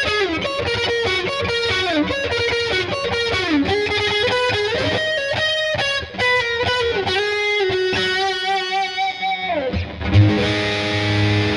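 2008 Gibson SG Standard electric guitar, fitted with a Seymour Duncan Phat Cat neck pickup, played with distortion: a fast single-note lead with slides and bends. About ten seconds in it lands on a chord that rings out.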